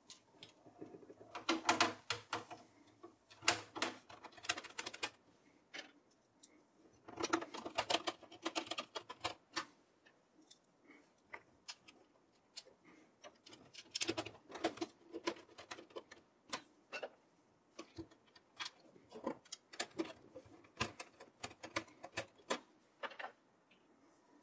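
Hand screwdriver driving small screws through a motherboard into a steel PC case: quiet runs of rapid little clicks and scrapes, coming in about five separate bursts.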